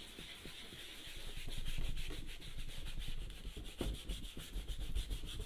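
A paintbrush scrubbed rapidly back and forth over a painted panel, working a diluted black paint wash into the surface with a continuous scratchy rubbing.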